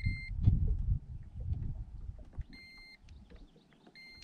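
Handheld digital fish scale beeping: short, steady, high-pitched beeps, one at the start, one about two and a half seconds in and one near the end. Under them, a low wind rumble on the microphone fades after the first second.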